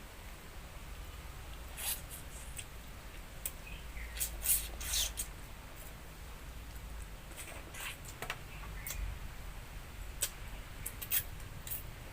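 A person eating with their hands: irregular chewing, crunching and wet mouth clicks, a cluster of them about four to five seconds in, over a steady low hum.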